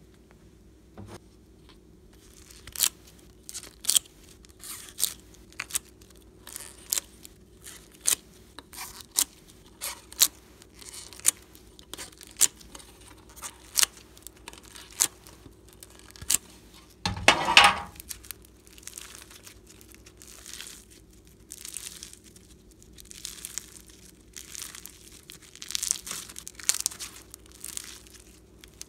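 Pink foam-bead slime squeezed and stretched by hand: a long run of sharp crackling snaps, one louder squelching burst about halfway through, then softer crinkly crackles as the slime is pulled apart.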